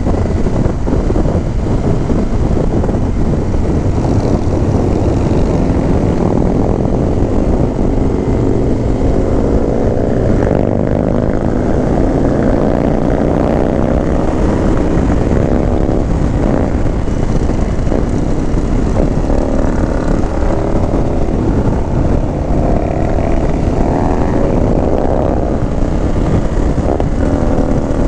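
Indian motorcycle's V-twin engine running at speed on a winding road, heard from the rider's seat with wind noise over the microphone. From about eight seconds in, the engine's pitch rises and falls again and again as the throttle is worked through the bends.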